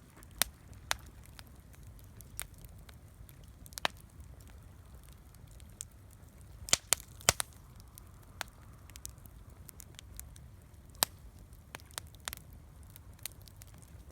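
Wood campfire crackling: irregular sharp pops and snaps over a low steady rumble, with a cluster of louder pops about seven seconds in.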